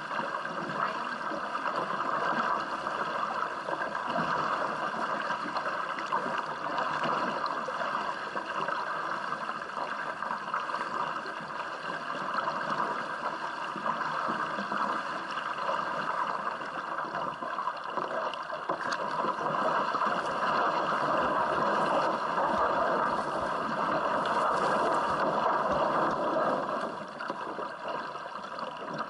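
Steady rush and splash of water along a canoe polo kayak's hull and from its paddle blades as it is paddled along. The sound drops in level near the end.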